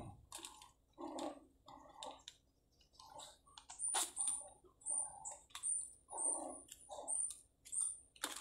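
A knife sawing through a tough plastic MRE rice pouch, the film crinkling and scraping with each stroke. From about four seconds in each stroke carries a short high squeak, roughly two a second.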